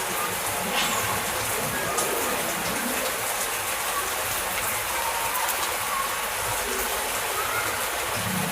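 Heavy rain falling steadily: a dense, even hiss with scattered sharp drop hits.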